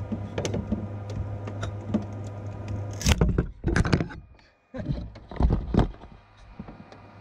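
A metal scraper clicking and scraping on a 3D printer's build plate, freeing a freshly printed PLA part, over the steady hum of the printer's fans. About three seconds in come several loud knocks and rubbing from handling.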